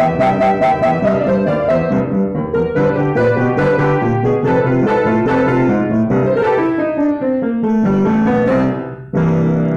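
Acoustic upright piano playing a fast boogie-woogie piece: rapidly repeated notes, then a falling run of notes, a brief pause, and a final chord struck near the end that rings on.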